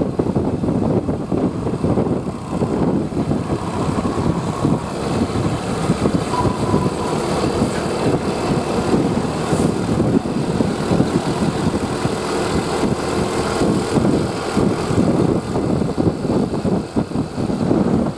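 A bus's diesel engine running, a steady rough engine noise with no horn tones.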